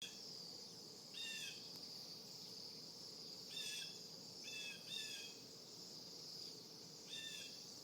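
Faint, short calls from birds flying over, five of them, each a brief note that drops slightly in pitch, over a steady high-pitched hiss.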